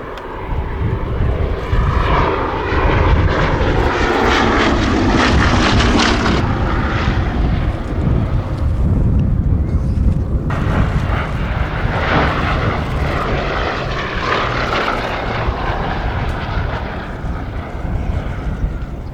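A Bristol Blenheim Mk.I's twin Bristol Mercury nine-cylinder radial engines running loud as it flies past, the engine note dropping in pitch between about two and six seconds in. The sound swells again later as it comes round once more.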